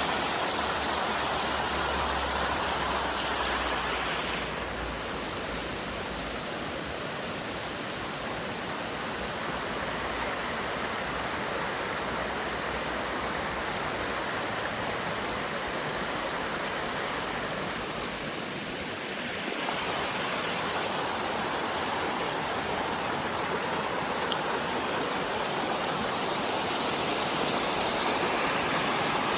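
Dim River water rushing, a steady full wash of running water. Its tone shifts abruptly about four seconds in and again near twenty seconds in.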